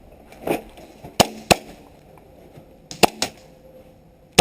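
Airsoft pistols firing single shots, sharp cracks in quick pairs: two about a second in, two about three seconds in, and one more near the end.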